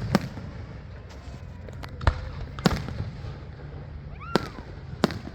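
Fireworks going off: about five sharp bangs at irregular intervals.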